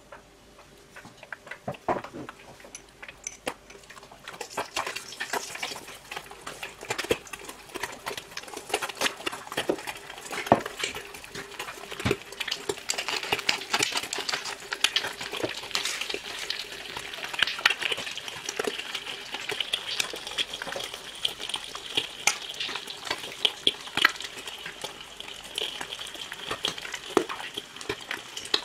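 Eggs frying in hot oil in a shallow pan: the sizzle builds over the first few seconds, then holds steady with frequent sharp crackles and pops.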